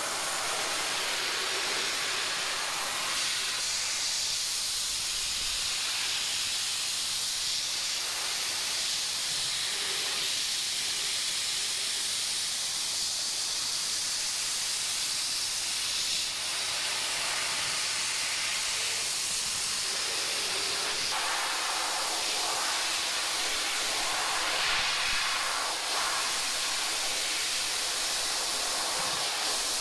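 Dry ice blaster spraying compressed air and ground dry ice through a broad nozzle at about 80 PSI onto a vehicle frame: a continuous loud, high hiss that shifts a little in tone now and then.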